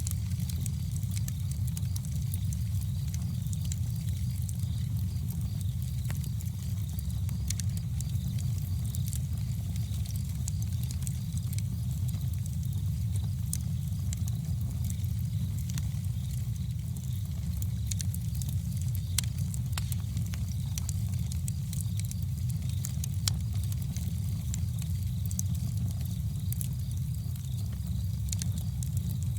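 Campfire burning: a steady low rumble of the flames with frequent small, irregular crackles and pops from the burning wood.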